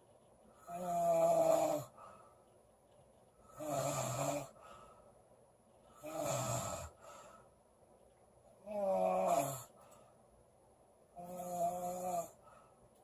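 A girl snoring in her sleep: five snores in a steady rhythm, about two and a half seconds apart, each about a second long and clearly pitched.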